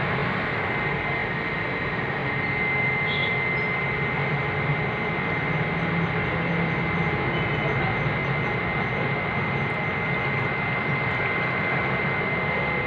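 A steady mechanical whir with a thin high whine running through it, unchanging throughout.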